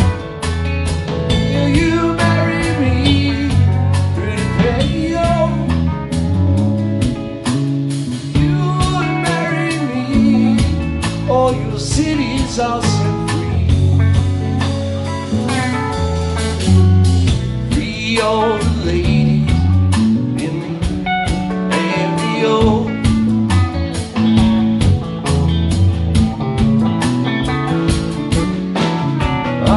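Live band playing a blues-rock number on electric guitars, bass guitar, drum kit and keyboard.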